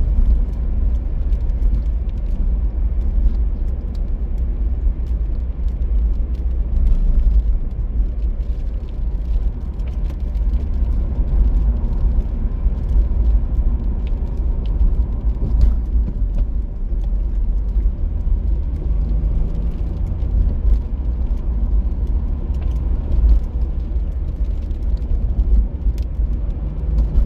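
Car driving on the open road, heard from inside the cabin: a steady low rumble of engine and tyres with scattered faint ticks.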